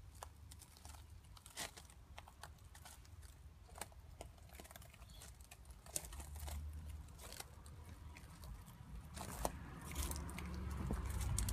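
Footsteps crunching irregularly on gravel, with a low rumble that grows louder near the end.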